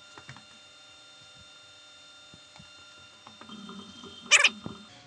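Faint steady electrical hum with a few thin whining tones from the powered-up Haas TL-1 CNC lathe standing idle, with scattered light clicks. A brief loud noise sounds near the end.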